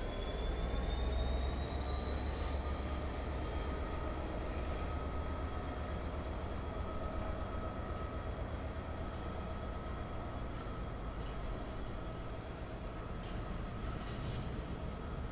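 Train running through a railway station: a steady deep rumble with a whine that rises slightly over the first few seconds and then holds steady.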